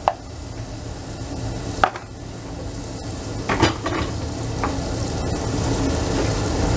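Tomato and meat sauce with sweetcorn sizzling in a stainless steel pot on a gas hob, slowly growing louder. A wooden spoon knocks against the pot a few times.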